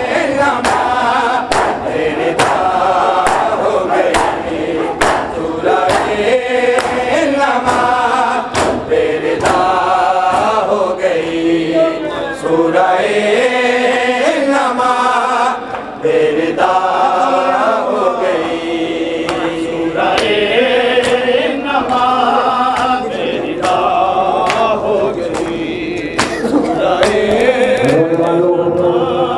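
Group of men chanting a noha, a Shia lament, in unison over a microphone and loudspeakers. Sharp slaps recur through the chant, the sound of the crowd beating their chests (matam) in time with it.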